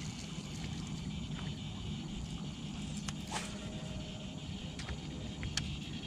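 Faint outdoor ambience: a steady low rumble under a thin, high insect drone, with a few light clicks, the clearest about three seconds in and again near the end.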